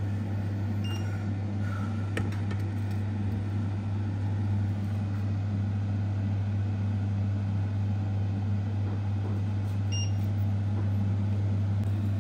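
Induction hob running at high power under a pan of oil: a steady electrical hum with fan noise. Two brief faint high pips come about a second in and again near ten seconds.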